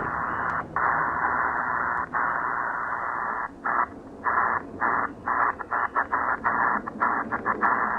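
Eton Elite Executive portable shortwave radio hissing with band noise from its speaker in sideband mode, muting briefly each time the tuning knob clicks a step: a chuffing effect, a characteristic of these newer radios. The dropouts come a few at first, then quicker toward the end as the knob is turned faster.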